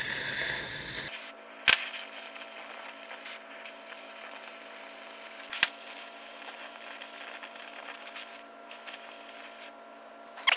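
Cutting torch hissing steadily as it cuts through steel pipe, with the hiss breaking off briefly a few times and three sharp pops.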